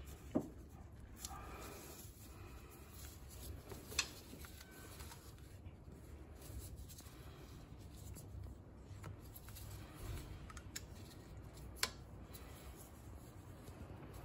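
Faint rubbing and rustling of gloved hands working rubber fuel hoses and a plastic syringe onto the carburettor's fuel pipes, with three sharp clicks spread through.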